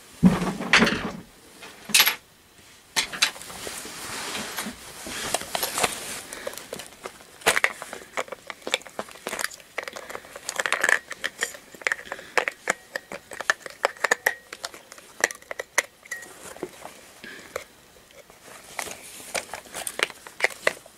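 Handling noise as a battery-operated plush toy is turned over and fiddled with: an irregular run of small clicks and taps mixed with rustling and crinkling plastic.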